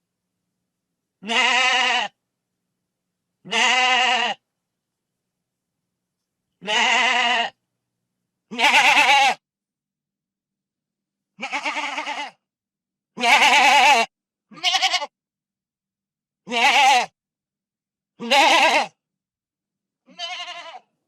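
Goat bleating: about ten separate short, quavering bleats, each under a second long, with silent gaps between them. The last bleat is fainter.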